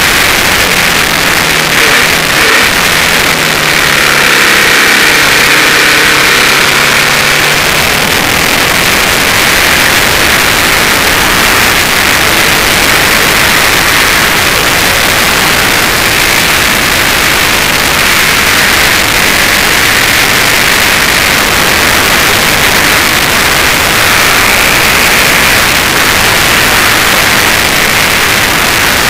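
Loud wind rushing over a camera mounted on a Suzuki TL1000S at track speed, with the bike's 996 cc V-twin engine faintly heard beneath it. The engine's pitch rises and falls through the first several seconds, then sinks into the steady wind noise.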